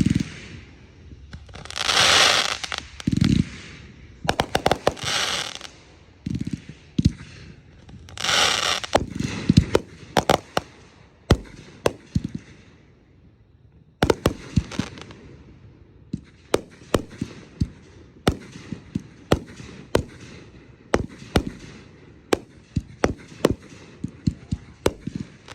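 Fireworks going off: a few hissing bursts of about a second each, then, from about halfway, a long run of sharp pops and cracks, several a second.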